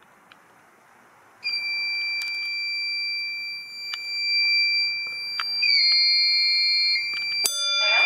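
A fire alarm system going into alarm, set off by a duct smoke detector's key-switch test. After about a second and a half of quiet, a loud steady high-pitched electronic alarm tone starts suddenly and drops slightly in pitch partway through. Near the end, sharp strikes and more alarm sounds join in.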